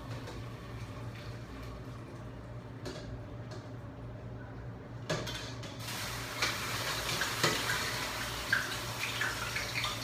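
A low steady hum, then from about halfway through, hot seasoned boil liquid poured from a saucepan into a stockpot, splashing and running, with a few knocks of the metal pots.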